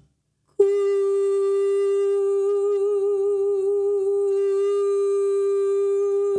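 A woman's voice singing one long held note on G4. It starts as a straight, pure tone about half a second in and then eases into a vibrato that wavers in pitch from about two seconds in. This is the vibrato exercise of pressing into a straight tone and then letting off so the vibrato comes on its own.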